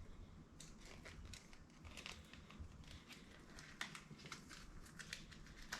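Faint crinkling and light clicks of a small plastic jewelry bag being handled as a necklace is slipped back into it.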